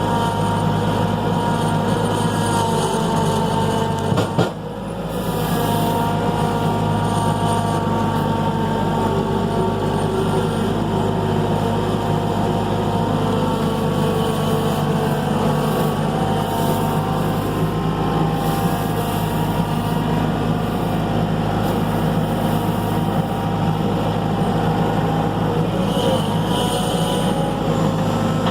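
Skid steer engine running steadily, its pitch shifting a little as it works. There is a sharp knock about four seconds in and a brief dip in level after it.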